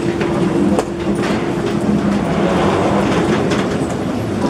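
Steady mechanical hum of a railway station concourse, with a few footsteps or light knocks about a second in.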